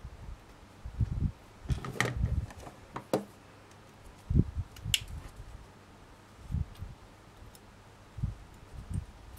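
Handling noise of craft wire being wrapped by hand around a wire pendant frame: soft low bumps and thumps, a cluster of scraping clicks about two to three seconds in, and a single sharp click about five seconds in.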